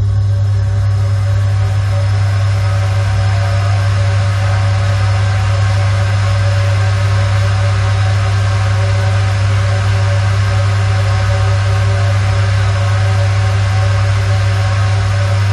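Ventilation fan running steadily, with a strong deep hum under an even rush of air and a few faint steady tones: a dark, droning fan sound effect.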